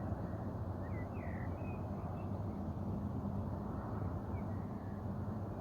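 A steady, low rushing noise from an unidentified distant source, likened to a rushing wind. A few short bird chirps sound over it about a second in.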